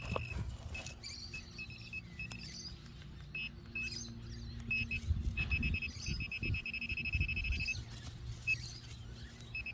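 Handheld metal-detecting pinpointer probe beeping at a high pitch in short bursts that break into fast, even pulsing as its tip closes on a buried target, with low rustles and knocks of the probe pushed through the grass.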